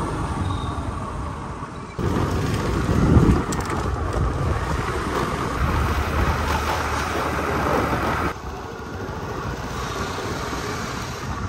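Wind rushing over the microphone of a moving scooter, with engine and road noise underneath. The noise steps up abruptly about two seconds in and drops back just after eight seconds.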